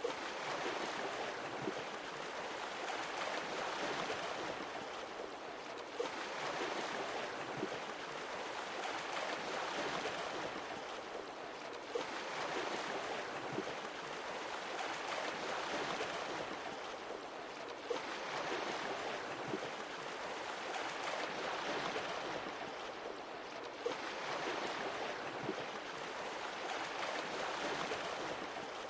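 Sea waves washing in and receding, one swell about every six seconds. A short click sounds at the start of each swell.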